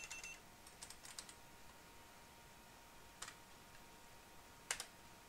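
Faint computer keyboard keypresses: a few quick taps about a second in, then single taps a little after three seconds and near the end, over quiet room tone.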